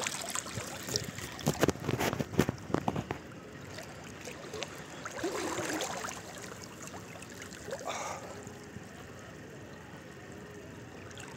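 Sea water splashing and lapping close to the microphone held at the surface: a cluster of sharp splashes in the first three seconds, then softer sloshing.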